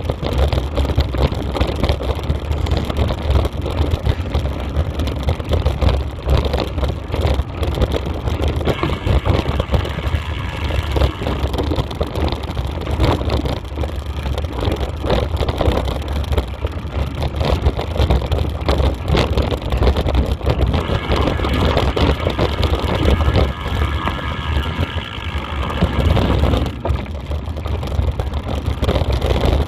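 Steady, loud rush and rumble of wind buffeting a camera that is moving fast over rough ground, with continual jolting.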